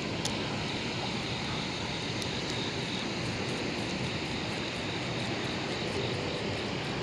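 Steady rush of fast, swirling tailwater below a hydroelectric dam, with a few faint ticks.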